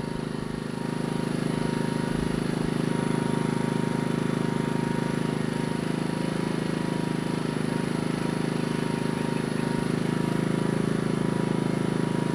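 Ryobi RYI2322E digital inverter generator running steadily under almost no load, just after starting. Its engine hum rises a little about a second in, then holds even.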